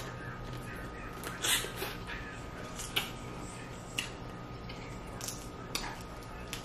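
Eating sounds: chewing and wet mouth smacks, with short sharp clicks every second or so.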